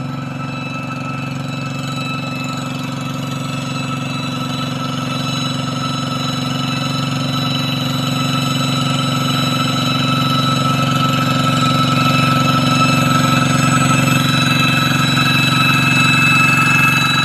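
Single-cylinder diesel engine of a two-wheel hand tractor running steadily as the tractor drives across a wet rice paddy toward the listener, growing gradually louder, with a steady high whine over the engine's low drone.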